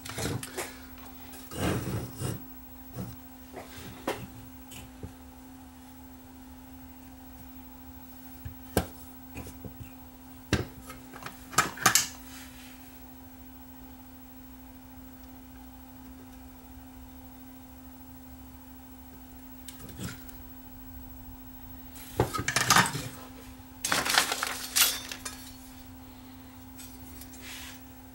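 Clicks and clinks of hand tools and small plastic and metal VCR parts being handled during reassembly, in scattered bursts with a longer lull in the middle and a busier patch near the end, over a steady low hum.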